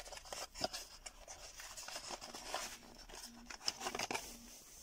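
A small cardboard box being opened by hand and a coiled cable pulled out of it: scattered light cardboard rustles and sharp taps.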